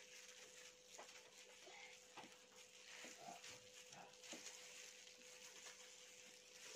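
Near silence: faint room tone with a steady low hum and a few faint short sounds scattered through it.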